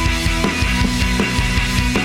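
Live rock band playing an instrumental passage, with drum kit beats under sustained guitar tones.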